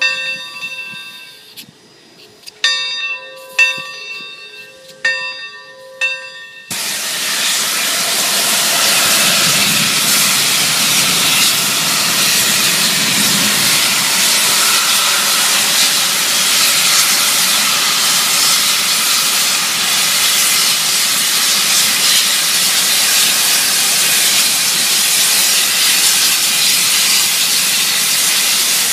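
Santa Fe 3751, a 4-8-4 steam locomotive, rings its bell with about six slow, spaced strokes. About seven seconds in, a loud, steady hiss of steam venting from the top of the engine starts suddenly and carries on without a break.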